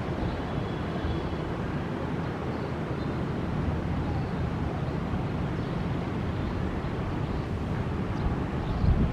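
Twin CFM56 jet engines of an Airbus A320-214 at take-off power, heard from far off as a steady low rumble.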